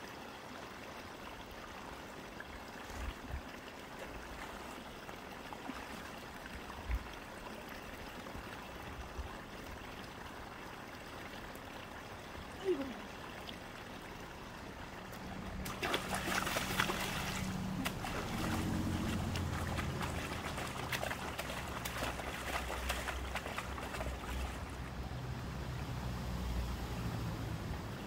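Shallow mountain stream trickling over rocks. About halfway through, a louder rushing noise comes up with a low hum underneath.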